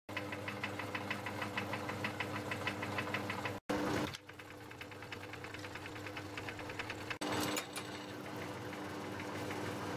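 Metal-working lathe running: a steady motor hum with a fast, even clatter from the drive, cut off for an instant twice, with two short louder rushes of noise.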